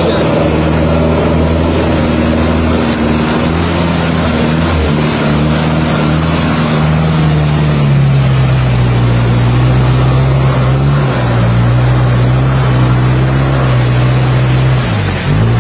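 Off-road truck engine labouring as it wades through a river, with water rushing and splashing against the body. The engine note drops to a lower steady pitch about eight seconds in.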